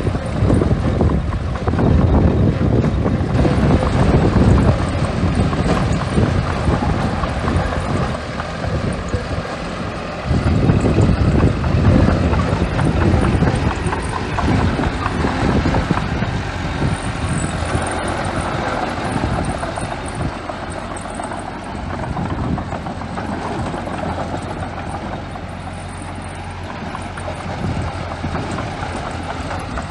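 Small bulldozer's diesel engine running hard as it pushes and spreads sand, with a brief dip about a third of the way in and slightly quieter running near the end.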